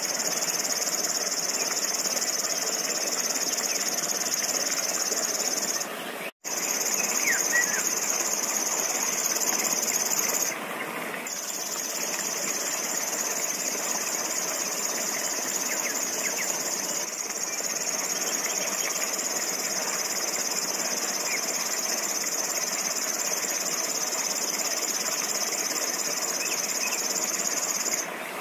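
Songbird giving a continuous high-pitched reeling song, an insect-like buzz with no pauses between phrases, cut by a split-second dropout about six seconds in and a brief break a few seconds later; a few faint short chirps sound underneath.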